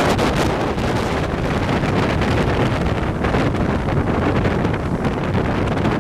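Storm-force wind buffeting the microphone: a loud, continuous rumbling roar, with the surf of the hurricane-driven sea beneath it.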